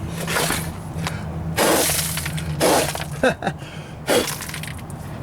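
Scraping and crunching as a person shifts and crawls along the ground to get under a pickup truck, in several short bursts about a second apart.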